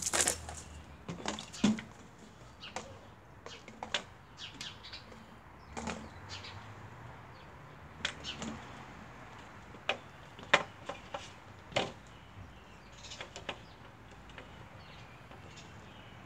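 Irregular clicks and knocks, one every second or two, with a few louder sharp ones about ten and twelve seconds in.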